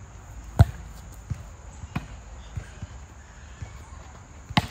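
Volleyball being played: a series of sharp ball thuds, the loudest about half a second in and another strong one near the end, with fainter thuds between.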